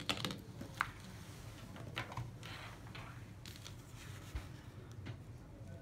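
Handling noise from a handheld CCTV test meter and its cables: a quick cluster of small clicks at the start, a soft scrape about two seconds in and a few faint ticks, over a faint steady low hum.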